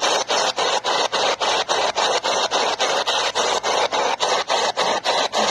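SBox radio scanner used as a spirit box, sweeping through radio stations: loud static chopped into short bursts about seven times a second.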